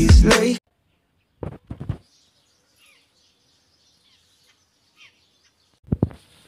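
Background music cuts off about half a second in, leaving faint bird chirping. Two short low thumps come at about a second and a half, and two more near the end.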